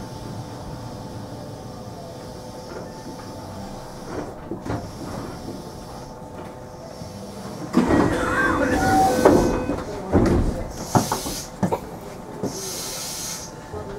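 JR West 227 series electric train running with a steady low hum and faint whine. About eight seconds in comes a louder stretch of clattering knocks, and near the end there are two short hisses of air.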